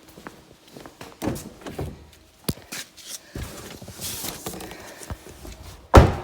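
Parts and packaging being handled: scattered light knocks and clicks, a short rustle about four seconds in, and one loud thump near the end.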